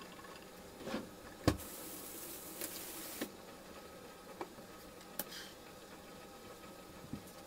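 Kitchen handling noises: a knock about a second in, then a sharper, louder knock half a second later, followed by a hiss lasting under two seconds and a few light clicks.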